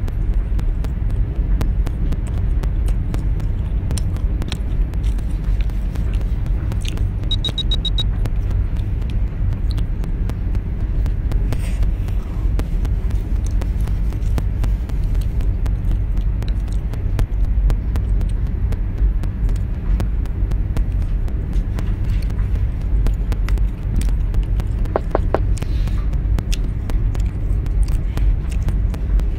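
Steady low rumble and hum, even throughout. A short run of high beeps comes about seven seconds in.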